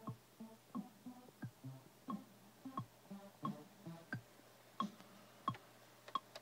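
Short plucked-sounding musical notes with sharp clicks in an irregular rhythm, played from Ableton Live as Launchpad Mini pads trigger them. The notes stop a bit over four seconds in, leaving a few sharp clicks.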